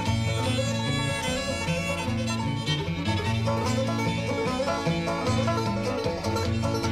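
Bluegrass music with fiddle and banjo playing.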